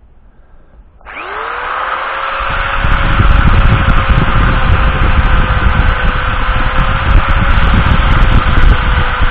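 JCB 20V cordless drill spinning up about a second in and running at a steady speed while boring a hole into a wooden walking-stick shank. A heavier rumble joins from about two and a half seconds in as the bit cuts, and the drill stops abruptly at the end.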